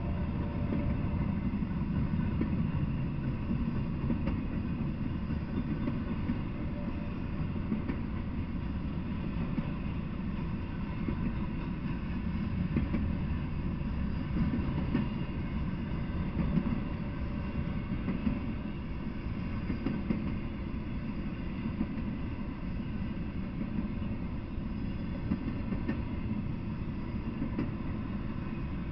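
Intermodal freight cars carrying containers and truck trailers rolling past on the rails: a steady rumble of wheels on track, with a few light clacks.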